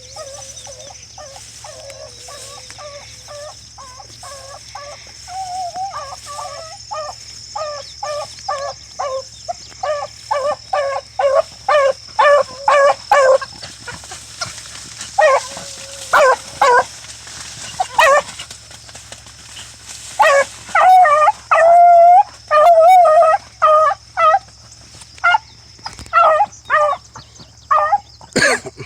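Hounds barking on a track: a long run of short, chopping barks that grow louder and come faster as it goes on, with a few longer drawn-out bawls in the second half.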